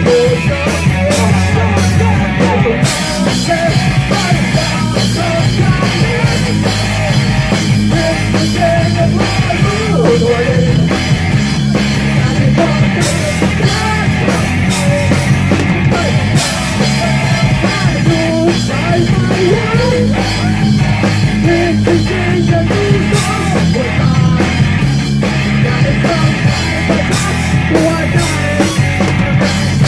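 Live rock band playing loud: drum kit and electric guitars, heard up close from the stage beside the drums.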